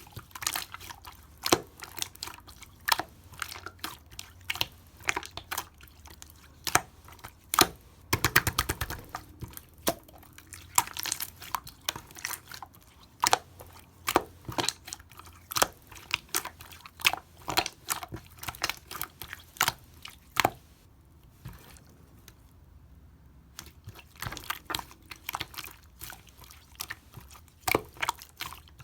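Someone biting and chewing something crunchy: many short, sharp crunches at an uneven pace, with a dense run of them about eight seconds in.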